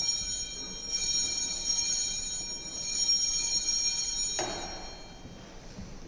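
Altar bells rung at the elevation during the consecration at Mass. Their high, bright ringing swells a couple of times and dies away over several seconds.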